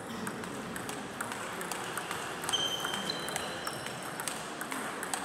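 Table tennis balls clicking in quick, irregular succession off bats and tables in a reverberant hall. A few brief high-pitched squeaks come about halfway through.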